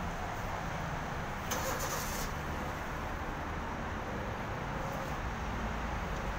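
Street ambience: a steady low rumble of road traffic, with a short hiss about a second and a half in, like a car passing.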